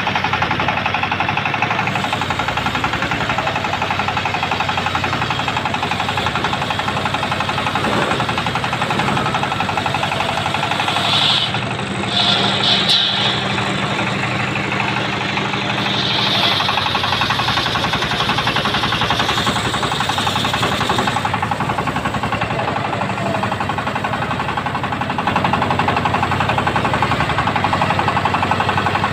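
Portable circular sawmill running steadily, its blade ripping a mahogany beam into boards, a little louder near the end.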